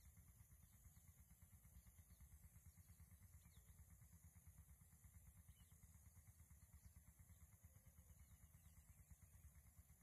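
Near silence: a faint, low, fluttering rumble, with a couple of tiny high chirps.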